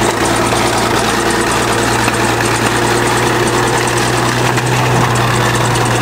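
Diesel engine of an old 20-ton crawler bulldozer running steadily under load as the dozer pushes over a thorn tree, with a constant low hum.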